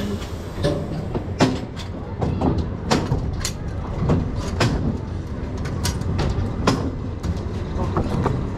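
Amusement ride seat restraint being pushed down and checked by hand: a run of irregular metal clicks and clunks over a steady low rumble.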